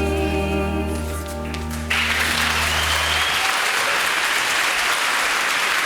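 The song's final held chord rings out, and audience applause breaks out suddenly about two seconds in and carries on as the last low note fades away.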